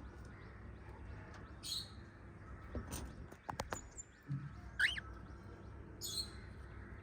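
Small pet parrots chirping: a few short, scattered calls over a low steady hum, with one call rising in pitch near the middle.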